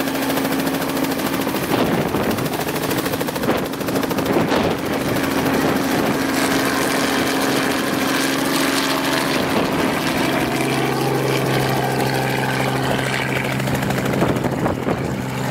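Robinson R44 helicopter lifting away low overhead and flying off: steady main-rotor chop over its piston engine. Its humming tone shifts lower about ten seconds in as it pulls away.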